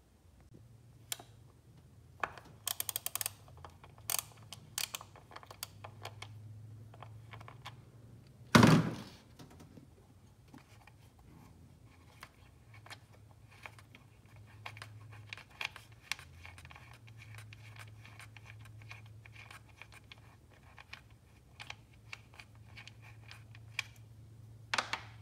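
Scattered clicks, taps and knocks of hand tools and parts being handled on a car engine, with a quick run of clicks about three seconds in and one loud thunk about eight and a half seconds in, over a faint low hum.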